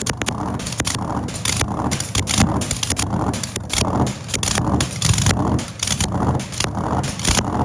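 Loud V8 engine running, its sound swelling and dipping in uneven pulses, with sharp cracks mixed in.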